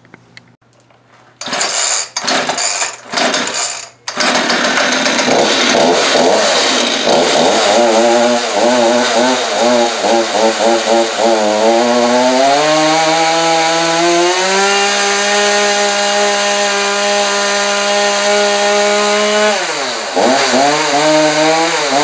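Homelite two-stroke chainsaw starting after a few short bursts, then running unevenly at idle. About twelve seconds in it revs up and is held at high revs for several seconds, drops back and revs again near the end. The freshly cleaned clutch drives the chain without slipping.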